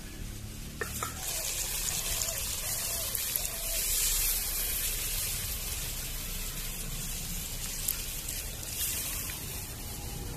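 Chicken in a green coriander masala sizzling and bubbling in a kadai just after a little water has been added to the fried-down meat; the hiss starts about a second in and is loudest around the middle.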